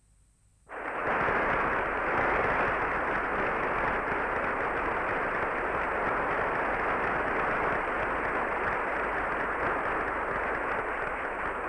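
Dense, steady din of a large crowd on an old film soundtrack, cutting in suddenly about a second in after near silence and holding even, with no distinct voices standing out.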